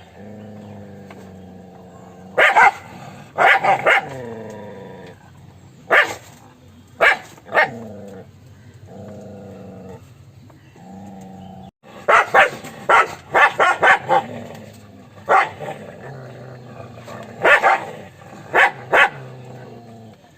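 Dog barking: short, sharp barks, singly and in quick runs of three or four, with a steady low growl between them. There is a dense run of barks about two-thirds of the way through.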